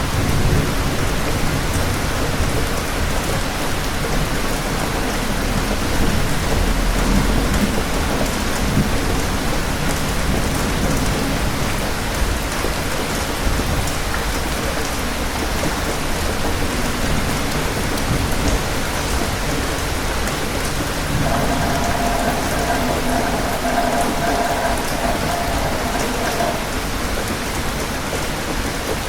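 Steady rain falling, with low thunder rumbling in the first part.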